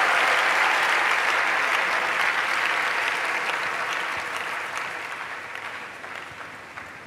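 Congregation applauding, a dense sustained clapping that dies away gradually over several seconds.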